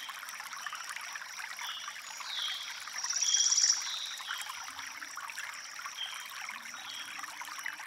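Outdoor waterside ambience: a soft steady trickle of water with faint high chirps. A louder buzzing chirp comes about three seconds in.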